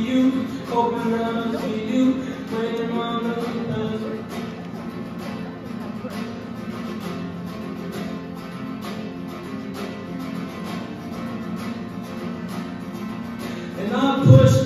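Acoustic guitar strummed steadily in a live solo performance, with a held, pitched melody line over it in the first few seconds and coming in loudly again near the end.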